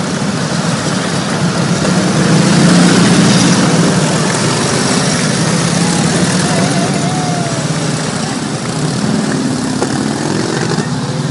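A line of vintage Harley-Davidson V-twin motorcycles riding slowly past at close range, their engines running loud and steady, loudest about three seconds in and easing off a little in the last few seconds.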